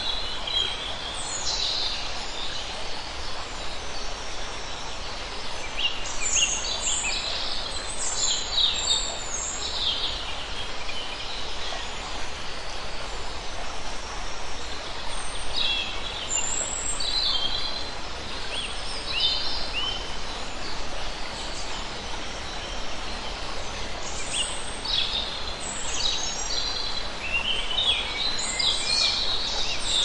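Birds chirping and calling in scattered bunches over the steady rush of a rocky stream flowing.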